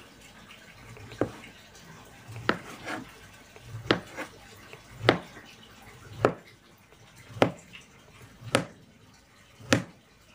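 Kitchen knife slicing through a block of tempeh and knocking on a plastic cutting board at the end of each stroke. The knocks are sharp and come about once a second, eight in all.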